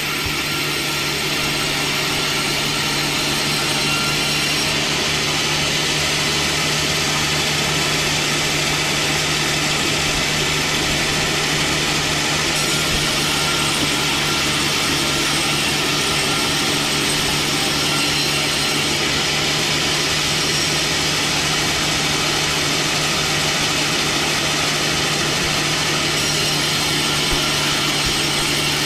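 Power saw cutting wood: a steady motor hum under continuous sawing noise.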